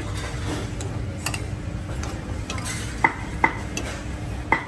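Metal spoon and fork scraping and stirring rice on a ceramic plate, with a few sharp ringing clinks of metal on china, the clearest three in the last two seconds.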